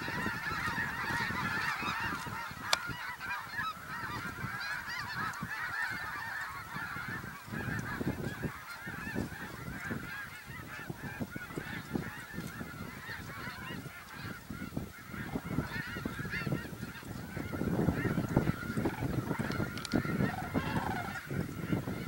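A large flock of snow geese honking in a dense, continuous chorus of overlapping high calls.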